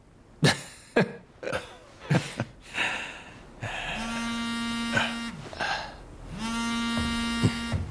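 Mobile phone vibrating against a hard tabletop: two buzzes of about a second and a half each, the first starting about four seconds in. Each buzz holds one steady pitch and winds down at the end. A few soft knocks come before the buzzing.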